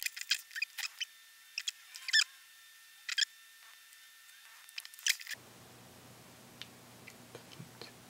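Scattered light clicks and taps from handling small tools and plastic parts, a few sharp ticks spread over the first five seconds. After that only a faint steady low hum remains, with the odd weak tick.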